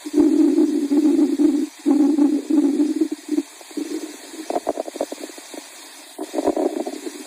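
A hungry cat's stomach growling: a low rumble in several stretches of a second or so with short breaks between them, loudest in the first few seconds.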